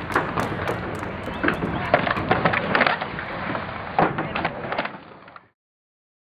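Skateboards rolling on concrete with several sharp board clacks, fading out and cutting off shortly before the end.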